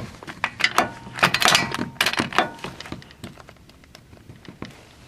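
Metal hand tools clattering and clicking as a swivel socket is fitted onto an extension. A dense run of sharp clicks and knocks in the first three seconds thins to a few scattered clicks.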